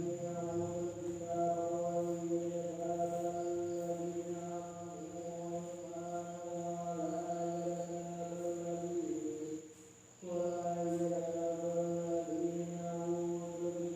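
Night insects keep up one steady, high-pitched trill. Beneath it runs a louder, lower pitched drone that wavers slightly and breaks off briefly about ten seconds in.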